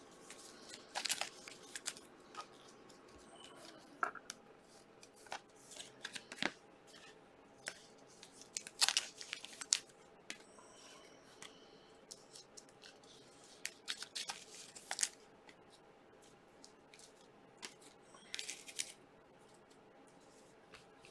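Trading card packs and cards being handled: scattered short rips, crinkles and clicks of foil wrappers and card stock, loudest in a few clusters.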